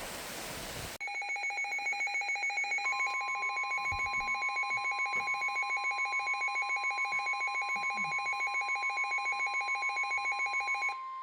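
Weather radio static cuts off about a second in. It gives way to a rapidly pulsing alert beep, about seven pulses a second. About two seconds later the NOAA Weather Radio's steady warning alarm tone joins underneath, marking a warning about to be read: here a special marine warning.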